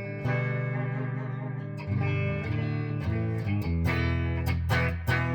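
1986 Hamer Chaparral electric guitar played on its split bridge and neck pickups together: a run of picked and strummed chords, each with a sharp pick attack and left ringing.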